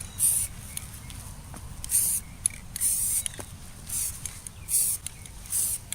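Aerosol spray-paint can hissing in short bursts, about six quick squirts roughly a second apart, laying down light coats.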